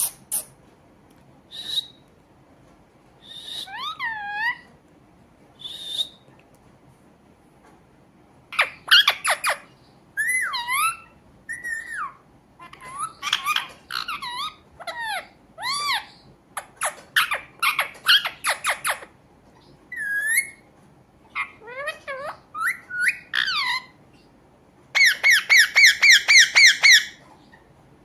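Rose-ringed parakeet calling: scattered short chirps and whistles whose pitch sweeps up and down, then a fast run of repeated harsh squawks for about two seconds near the end.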